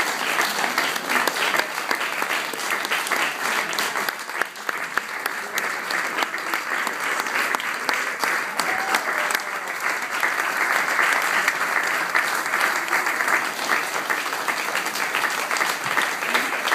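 Audience applauding, dense clapping throughout.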